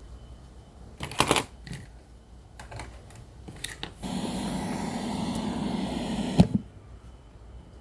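A few handling clicks and knocks, then the radio's speaker gives a steady buzzy hiss of static for about two and a half seconds, cut off by a sharp click. The static is what the radio makes with no FM signal.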